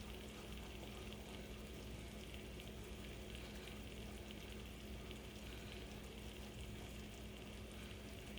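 Potatoes frying in a pan: a steady, faint sizzle with a low hum under it and a few light ticks.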